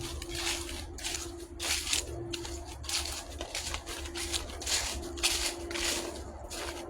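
Footsteps of a hiker walking on a dry trail, a step about every two-thirds of a second.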